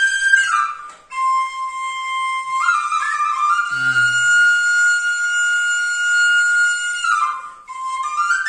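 Bamboo bansuri flute playing a slow Pahari hill melody: long held notes joined by slides, broken off briefly for a breath about a second in and again near the end.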